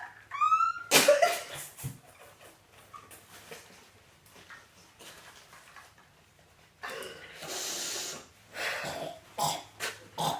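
A person retching and gagging in short heaving bursts, with a long breathy rush about seven seconds in. This is the stomach rebelling against bananas followed by Sprite.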